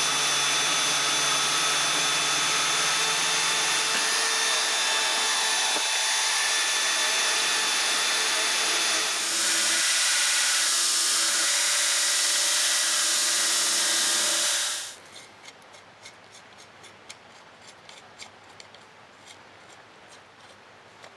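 A portable band saw runs steadily while cutting a small part. At about nine seconds a belt grinder takes over, grinding metal against the belt. Near fifteen seconds the machine sound stops abruptly, leaving faint clicks and rubbing as the knife's parts are handled and fitted by hand.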